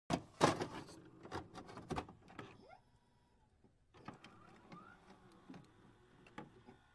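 Digital glitch sound effects for an animated loading intro: a run of sharp electronic clicks and crackles in the first two and a half seconds, then a short pause and a sparser, fainter run of clicks with a brief rising tone.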